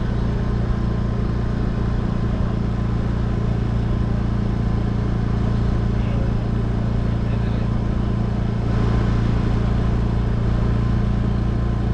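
Steady low engine drone and road noise from a vehicle cruising at constant speed, heard from on board; it grows slightly louder about nine seconds in.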